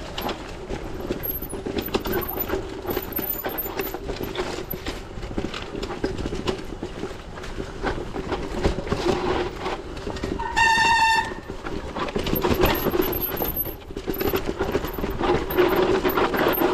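Bicycle being ridden over rough off-road ground: a steady hum with constant rattling and knocking from the bike and camera mount. About ten and a half seconds in, a horn gives one short beep.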